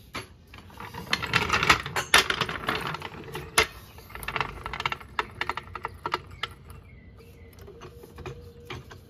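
Steel floor jack being rolled over concrete and set in place, its metal wheels and frame rattling with many quick clicks, busiest in the first four seconds and sparser after.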